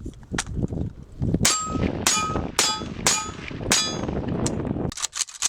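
Rifle shots at steel plates, several in quick succession about half a second apart, most followed by the short bell-like ring of a steel target being hit. A low wind rumble runs underneath.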